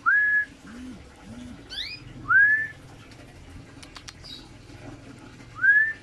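A person whistling three times, each whistle sliding up and then held briefly, about every two and a half seconds. Between the first two come two faint low cooing calls and a short bird chirp.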